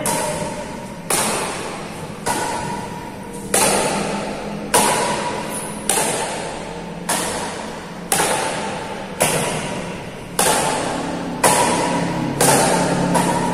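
Badminton rackets striking a shuttlecock in a long rally, about one sharp hit a second, each hit ringing out in the echo of a large hall.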